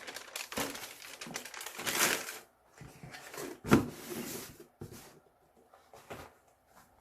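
Paper packaging crinkling and rustling in irregular bursts as it is handled, with one louder crunch about halfway through.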